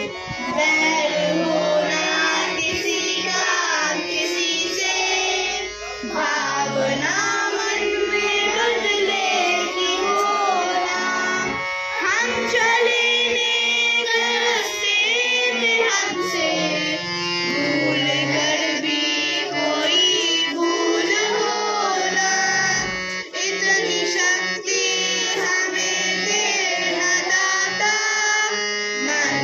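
Boys singing a Hindi devotional prayer song, accompanied by a harmonium holding steady notes under the melody.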